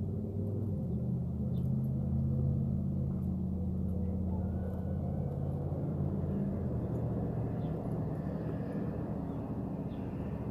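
Steady low engine drone, loudest in the first six seconds and then fading.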